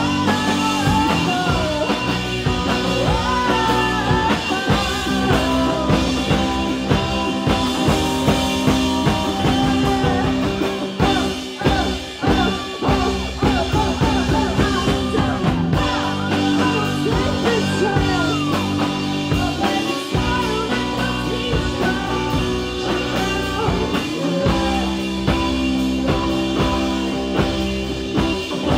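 Rock song with a woman singing over electric guitar, bass and drums, dropping back briefly a little before the middle.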